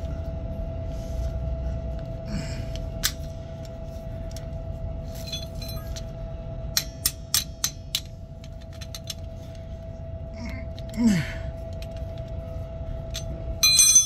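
Locking pliers and wrenches clicking and clinking against a brass air-line splice fitting as the pliers are moved and clamped on: a quick run of sharp clicks about seven to eight seconds in, and a ringing metal clink near the end, over a steady hum.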